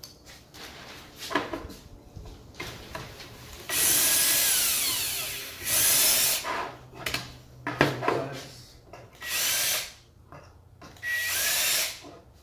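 Cordless drill running in bursts as it drills pilot holes with a bit: one long run of about two seconds that falls in pitch as it slows, then three shorter bursts. Knocks and handling clicks come before it.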